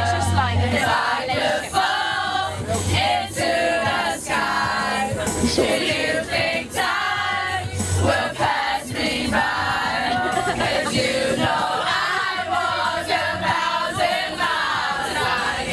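Many voices singing together, choir-like and continuous, over a steady low bass tone.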